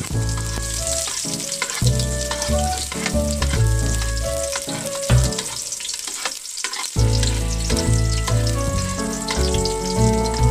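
Sliced onions frying in oil in an aluminium pot, sizzling and crackling as they are stirred with a metal spoon while they begin to brown. Background music with a bass line plays underneath, pausing briefly past the middle.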